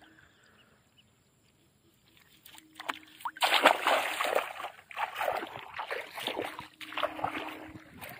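Water splashing and sloshing in shallow water, in irregular bursts that begin about three seconds in, after a near-silent start.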